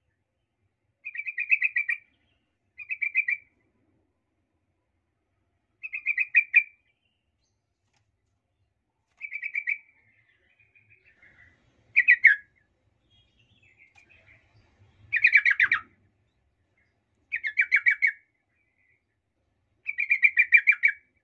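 Yellow-vented bulbul (trucukan) calling: short bubbling phrases of rapidly repeated notes, each about a second long, every two to three seconds, several ending in a downward slur. This is a lure call meant to provoke rival trucukan into anger.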